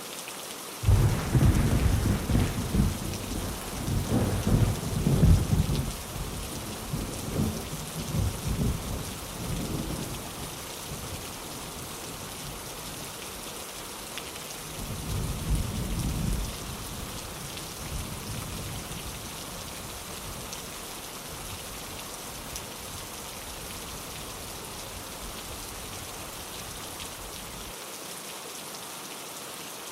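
Thunder rumbling over steady rain. A loud rumble starts suddenly about a second in and rolls on in surges for several seconds, a second rumble comes near the middle, and the low rumble dies away near the end, leaving the even hiss of the rain.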